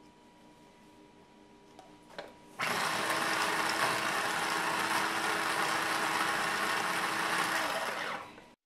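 Small electric mini chopper with a glass bowl, chopping fresh parsley. After a brief knock about two seconds in, the motor starts and runs steadily with a hum for about five and a half seconds, then cuts off.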